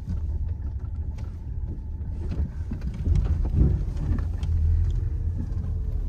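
Car driving, with a steady low rumble of engine and road that grows a little louder about halfway through.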